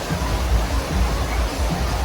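Steady rush of a waterfall, with background music underneath.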